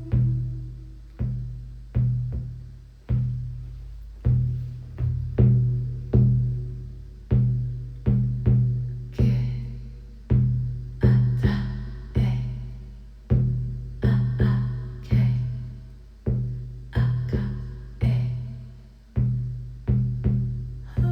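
Shamanic hand drum struck at a bit over one beat a second, sometimes in quick pairs, each stroke ringing low and fading.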